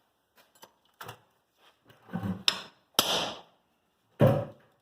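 Steel hammer striking a cold chisel driven in behind the seized, press-fit front spindle: about four metallic blows with ringing after each, the heaviest near the end.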